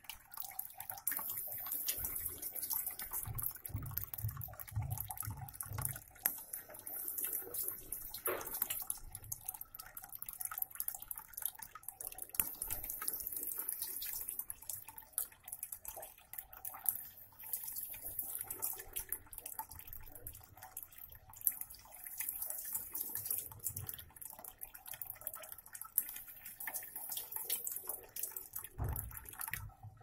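A thin stream of water pouring and splashing steadily into a small plastic tub, with a few soft low thumps now and then.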